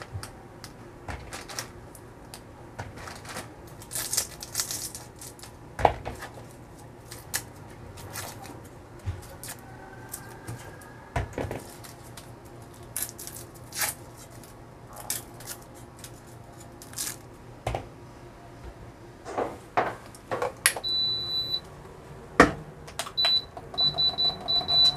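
Kitchen food-prep handling: scattered clicks, taps and knocks as red chilies are picked over and a knife cuts on a board, over a low steady hum. Near the end a thin high electronic beep sounds once and then as a run of short pips.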